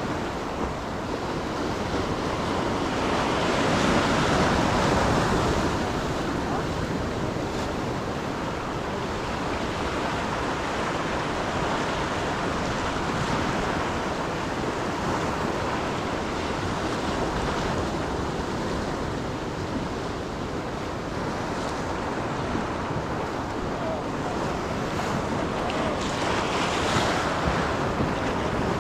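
Ocean surf breaking and washing up the beach, with wind buffeting the microphone. The wash swells louder a few seconds in and again near the end.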